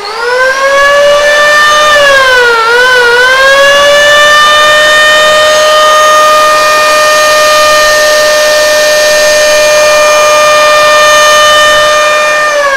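Dong Cheng 500 W electric hand planer running free, not cutting, with a loud, steady high-pitched whine from its motor and cutter drum. The whine climbs to speed in the first second, sags briefly about two and a half seconds in, then holds, and begins to wind down at the very end.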